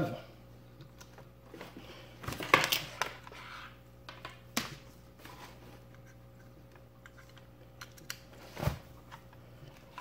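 Light handling noises on a countertop: a few soft clicks and knocks with some plastic rustling as the alarm hub's power cord and parts are moved about, over a faint steady hum.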